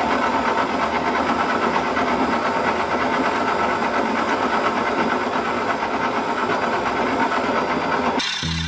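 Electric stand mixer's motor running steadily at its lowest speed, the dough hook kneading pizza dough as water is slowly added. Near the end it cuts off suddenly and background music begins.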